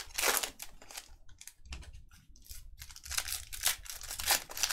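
Trading card pack wrappers being torn open and crinkled, with cards being handled: a run of irregular rustles and crackles, busier in the last couple of seconds.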